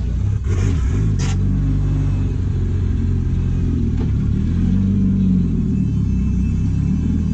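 Turbocharged Honda F20C (S2000) four-cylinder in a drift pickup running at low revs as the truck creeps along, its pitch rising and falling a little. Two short noisy bursts come through about half a second and a second in.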